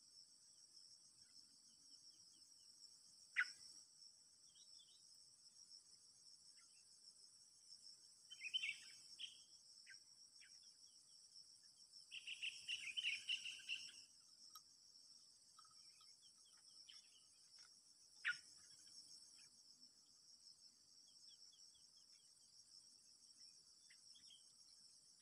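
Steady, high-pitched chorus of crickets, with scattered faint chirps from small birds, a louder chirping stretch around the middle, and two sharp clicks.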